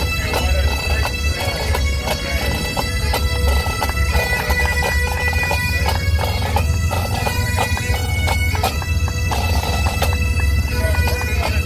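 Pipe band marching past: bagpipes playing a tune over their steady drones, with drums beating.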